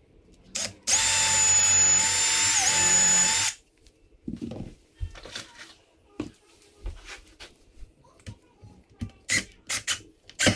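Cordless drill running for about two and a half seconds as it bores into a clamped board, its whine dipping briefly in pitch near the end. After it stops come scattered light knocks and clicks, with a quicker run of clicks near the end.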